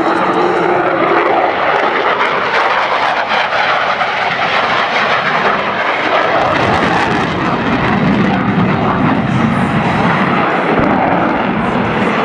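Military jet aircraft engine noise, loud and steady.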